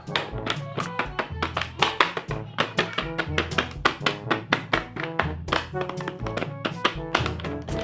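Upbeat background music with a fast, steady percussive beat over a bass line and short plucked notes.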